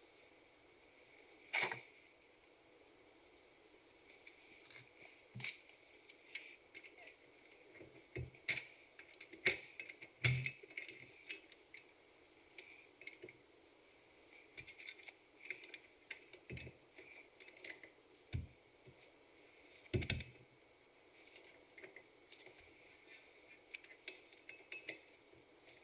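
Irregular metallic clinks and knocks of hand tools and steel parts being handled and set down during work on a wheel hub, a few of them louder.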